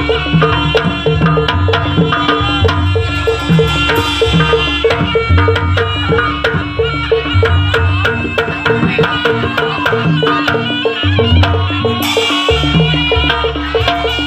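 Live jaranan gamelan music: kendang barrel drums beat a fast, driving rhythm of about four strokes a second under steady pitched melodic instruments.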